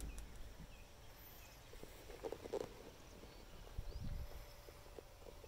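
Faint handling noise: scattered soft clicks and knocks, with a couple of low thuds about four seconds in, over a quiet background.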